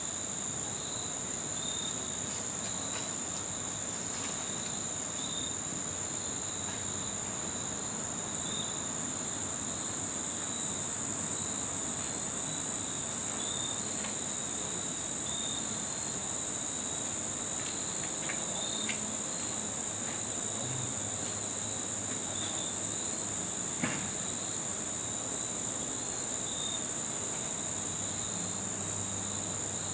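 Crickets singing: one continuous high-pitched trill, with a lower chirp repeating about once a second. There are a few faint clicks.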